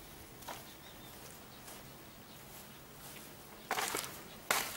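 Two crunching footsteps on dry grass and leaves near the end, about a second apart, over a low steady background.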